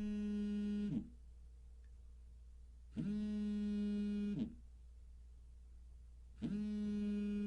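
Buzzy, steady-pitched telephone line tone sounding in pulses about a second and a half long, repeating every three and a half seconds.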